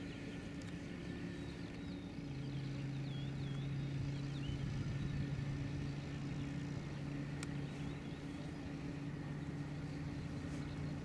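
Light aircraft's piston engine and propeller running at a steady low idle while taxiing. About two seconds in, the engine note drops slightly in pitch and gets a little louder. Faint bird chirps can be heard in the first few seconds.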